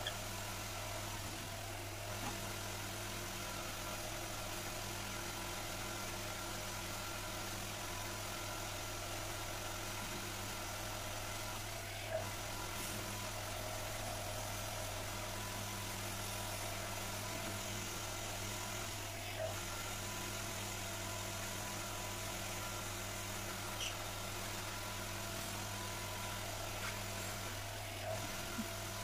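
Wood lathe running steadily with a low motor hum as it spins a turned spindle. A few faint ticks come from the stick held against the turning work.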